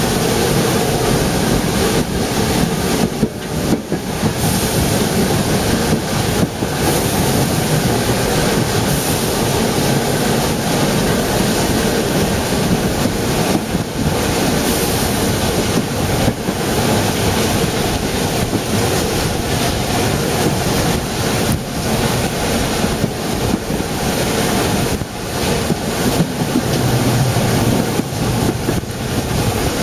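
Narrow-gauge steam train hauled by locomotive 99 6101, running steadily, heard from an open side window of the train: a continuous rush of the running train mixed with wind buffeting the microphone.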